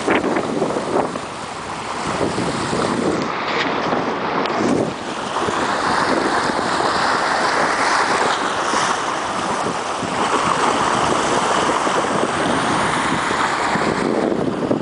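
Seawater washing and splashing against a container ship's steel bow and anchor chain, rising and falling in level, with wind buffeting the microphone.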